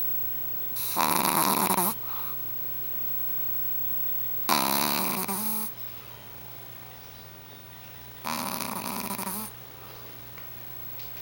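Shih Tzu puppy snoring in its sleep: three rasping snores about four seconds apart, each lasting about a second.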